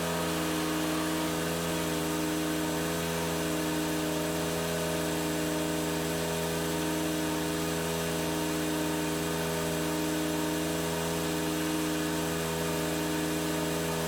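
Small lawn mower engine running at a steady speed while mowing: an even drone that does not rise or fall.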